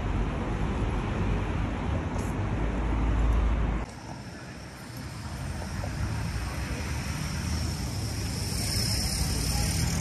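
City street ambience: steady road traffic noise with a low rumble, which drops off abruptly about four seconds in and then builds up again.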